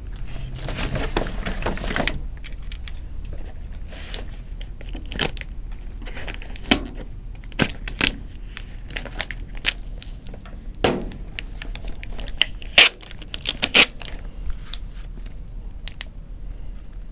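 Irregular crinkling and rustling with scattered sharp clicks and knocks, the loudest a few seconds before the end. It is handling noise of some object, not a machine running.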